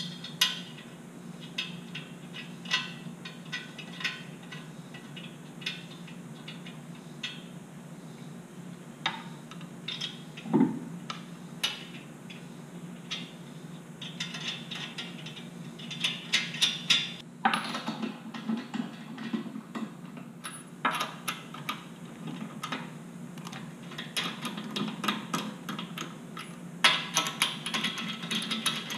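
Lug nuts being run onto the wheel studs by hand and snugged with a hand tool: scattered metallic clicks and clinks, with longer runs of rapid clicking about halfway through and again near the end, over a steady low hum.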